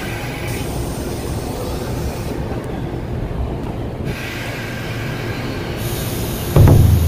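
JNR 185 series electric train pulling out of a station, its running and wheel noise heard through an open window. Near the end a sudden, much louder low rumble breaks in.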